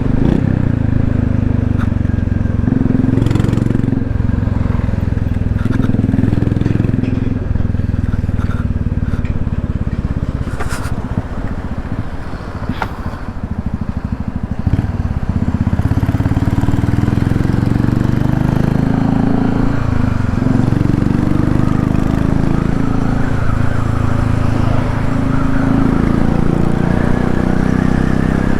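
Royal Enfield Classic 350's single-cylinder engine running through an aftermarket sport exhaust tip while riding, its pitch rising and falling as the throttle opens and closes. About twelve seconds in it eases off, then picks up again about three seconds later.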